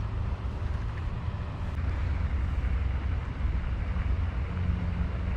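Wind buffeting the microphone: a steady, unsteady low rumble with a faint hiss over it.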